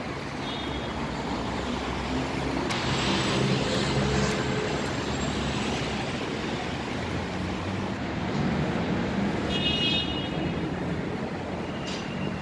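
Road traffic on a city street: a steady rumble of passing cars and buses. A short high-pitched tone sounds briefly about half a second in, and again more strongly near ten seconds.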